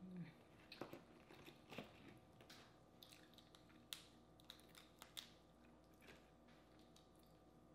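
Boiled crawfish being cracked and peeled by hand: faint, irregular crackles and snaps of the shell.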